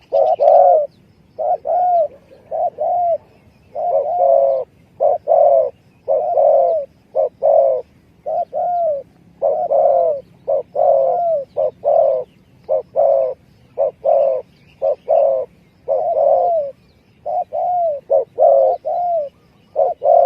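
Spotted dove (tekukur) cooing over and over in short phrases of two or three low notes, a lure call for drawing in wild spotted doves.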